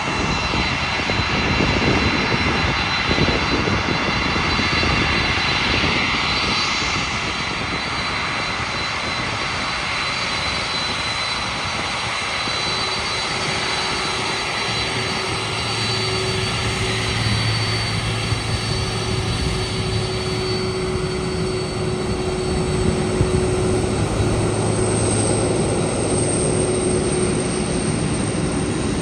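Jet airliner engines running: a steady rushing noise with thin, steady high-pitched whines over it, and a low hum that comes in about halfway through.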